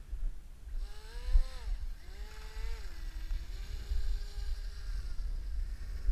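Radio-controlled ice boat's motor and propeller whining, the pitch rising and dropping twice, then holding steady until it stops about five seconds in. Wind rumbles on the microphone throughout.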